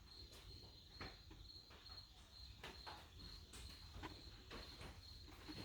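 Near silence with the faint, steady trill of crickets and a few soft taps.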